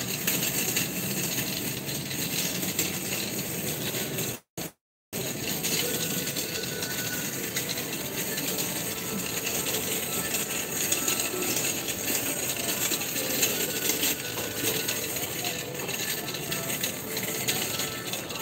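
Supermarket ambience: a steady background hubbub full of small clinks and rattles. The sound cuts out completely for about half a second some four and a half seconds in.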